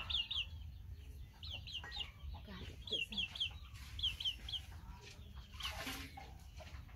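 Chickens chirping in short runs of three to five quick, high peeps, several times over, with a brief rustle near the end.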